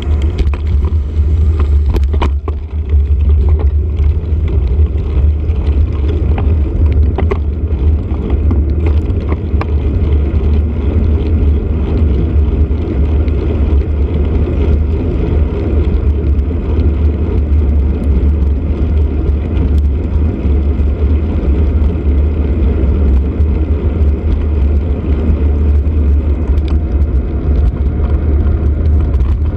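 Steady low rumble of wind and road noise on the microphone of a camera mounted on a moving bicycle, with scattered brief knocks and rattles, most of them in the first few seconds.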